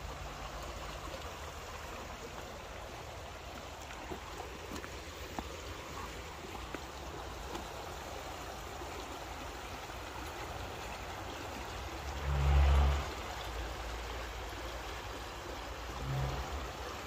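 Shallow rocky creek running: a steady rush of water over stones. About two-thirds of the way through, a brief low rumble on the microphone is the loudest sound, and a smaller one follows near the end.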